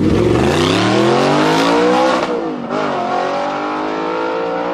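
Audi R8 accelerating hard away, its engine revs climbing through a gear. There is a quick upshift about two seconds in, then the engine pulls again.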